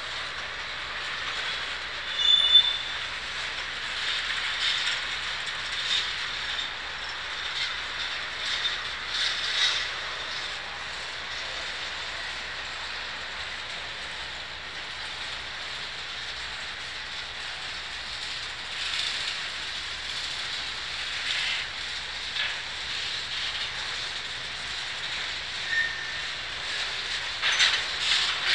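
Freight cars (tank cars, covered hoppers and boxcars) of a Norfolk Southern train rolling past: a steady rush of steel wheels on rail with scattered clicks over the rail joints. Brief high wheel squeals come through, the sharpest about two seconds in.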